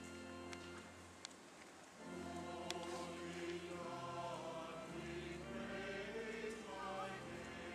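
A choir singing slowly in sustained chords, swelling about two seconds in, with a couple of faint ticks.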